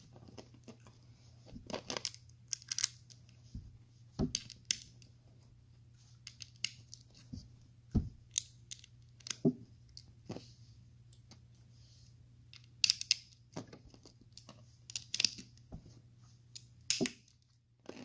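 LEGO tiles and bricks being handled and pressed onto a plate: irregular sharp plastic clicks and taps, some close together, over a faint steady low hum.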